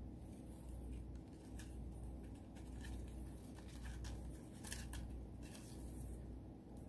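Plastic curling ribbon being handled and fluffed, giving faint rustles and a few small crinkling clicks, over a low steady hum.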